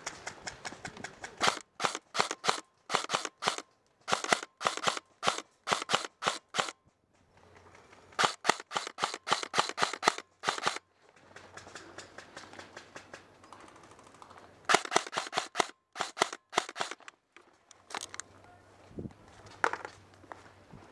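Airsoft electric guns firing: several bursts of rapid shots with short pauses between, and a few single shots near the end.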